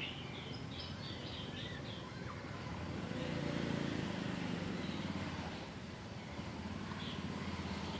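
A quick run of high chirps in the first two seconds, then a low rumble, like a motor, that swells about the middle and fades, over steady low background noise.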